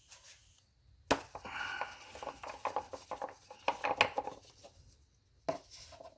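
Engine oil filler cap on a Honda 2.4-litre engine being twisted off and handled: a sharp click about a second in, then a couple of seconds of irregular clicks and scraping, and another click near the end.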